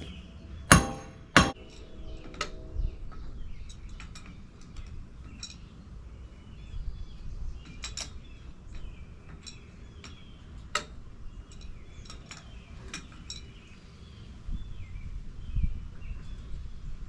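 Two sharp, ringing metal-on-metal strikes about a second in, then scattered lighter metallic clinks and taps of hand tools working on the backhoe's steel parts.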